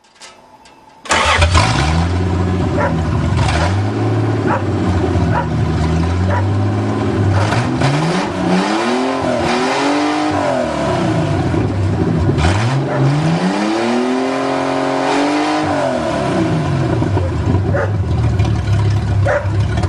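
1982 Toyota Cressida's fuel-injected engine cuts in about a second in and idles, then is revved up and back down twice. It is running again after water was cleared out of its fuel injection system.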